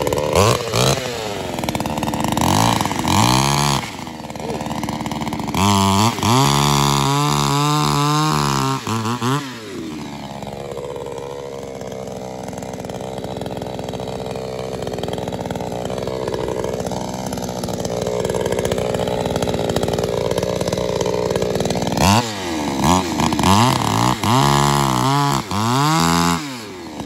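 Huyosen 6020E 60 cc two-stroke chainsaw running, revved up and down in repeated bursts. It settles to a steadier, quieter run through the middle for about ten seconds, then revs up and down again near the end.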